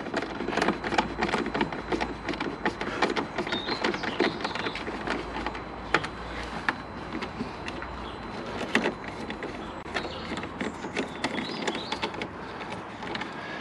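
Screws being tightened by hand with a screwdriver into a plastic air intake cover in a car's engine bay: a run of small, irregular clicks and scrapes.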